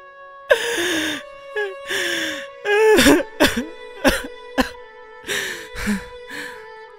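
A man sobbing in a string of short, sharp, choked cries, several sliding down in pitch, over soft sustained background music.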